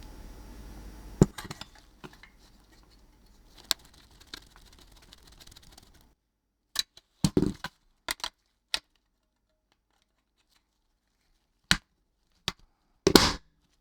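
Scattered sharp clicks and knocks of hard objects being handled. A loud click comes about a second in over a faint background hum. After that there is dead silence with a few isolated clicks, and a short, louder cluster of knocks near the end.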